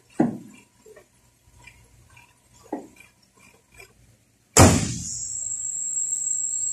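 A couple of soft knocks from work in the engine bay, then a loud slam as the pickup truck's hood is shut about four and a half seconds in. After the slam, a steady high-pitched whine with a hiss carries on.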